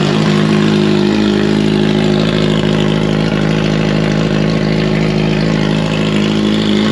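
Kawasaki Z900 inline-four engine idling steadily with its silencer removed: a loud, even open-pipe exhaust note.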